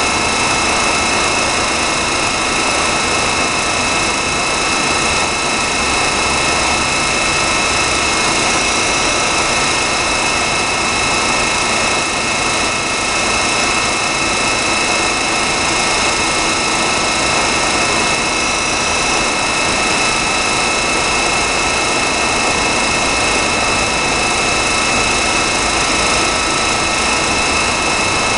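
Zayer KF3000 CNC bed mill running steadily under power: a constant machine hum with several steady high-pitched whines, unchanging throughout.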